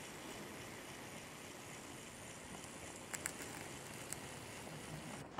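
Faint steady background hiss, with a few small clicks about three seconds in and one more a second later; the hiss drops suddenly near the end.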